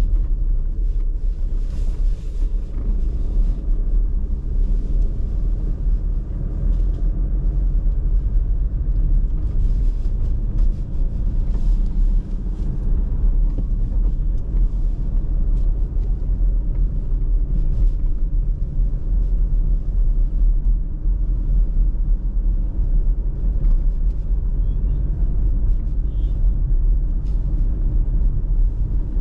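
A car driving along a road: a steady low rumble of road and engine noise with no break.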